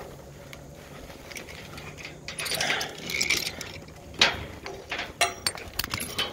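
Rustling, then a run of sharp mechanical clicks and rattles from about four seconds in, the first of them the loudest.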